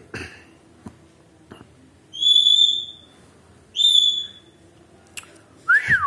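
Rose-ringed (Indian ringneck) parakeet whistling two high, clear notes about a second and a half apart, each held for about half a second and dipping slightly at its end.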